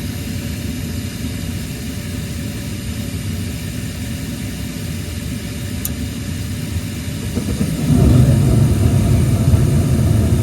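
Gas furnace running after its new hot surface igniter was fitted: a steady low rumble with faint steady tones, growing louder and fuller about eight seconds in.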